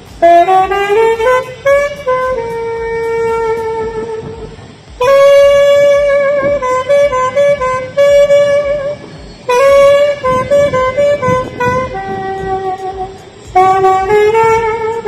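Alto saxophone playing a melody in phrases. A rising run leads into a long held note, a louder new phrase starts about five seconds in, and another rising run comes near the end, with short breaks for breath between phrases.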